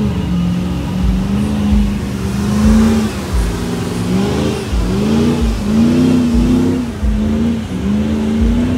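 Lifted Chevrolet Silverado mud truck's engine revving hard as it drives through a mud pit. The pitch climbs and drops with the throttle, with several quick revs in the second half.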